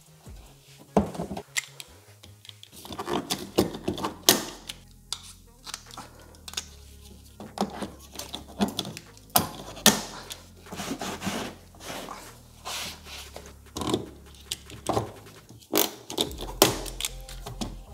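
Irregular sharp clicks and snaps of hand rivet pliers setting fasteners in a plastic wheel-arch liner, over background music with a bass line.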